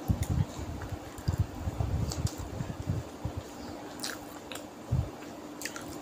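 Close-miked eating sounds: chewing a mouthful of rice with mashed potato and pointed gourd, with soft squishing as fingers mix rice on the plate. A few sharp wet clicks, about two, four and six seconds in.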